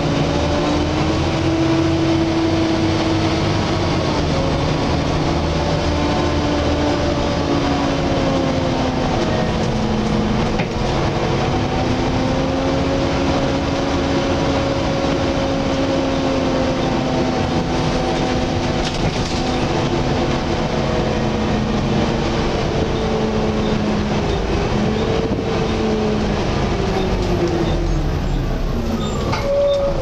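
Volvo B7TL double-decker bus on the move, heard from inside: the engine's cooling fan gives a loud hoover-like whine of several tones that slowly rises and falls with engine speed, over the rumble of the engine.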